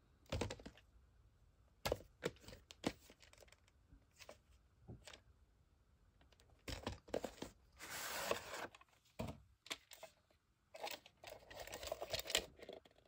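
Cardboard VHS sleeve being handled and turned over in the hand, then a plastic cassette slid out of it in the second half: scattered light rustles, scrapes and clicks.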